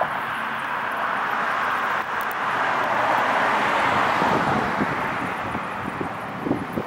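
Road traffic: a passing vehicle's rush of road noise that swells about three to four seconds in and then eases off, over a low rumble.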